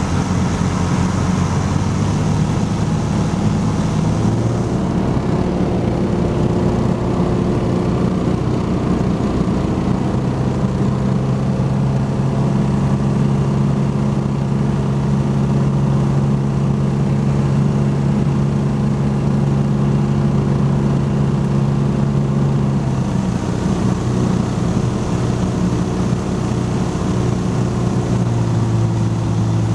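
Light single-engine aircraft's piston engine and propeller droning steadily inside the cabin on final approach, the engine note shifting pitch a few times as power is adjusted.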